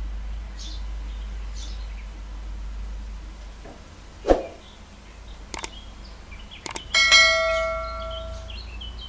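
A thump, then quick mouse-click sounds and a bell ding that rings for about a second and a half: the sound effect of a YouTube subscribe-button animation.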